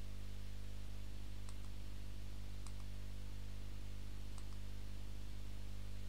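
A few faint computer mouse clicks, spaced a second or more apart, over a steady low electrical hum.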